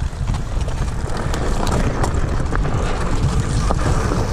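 Wind buffeting a chest-mounted action camera's microphone while a hardtail mountain bike rolls down a dirt trail, with steady tyre rumble and a scattering of sharp clicks and knocks.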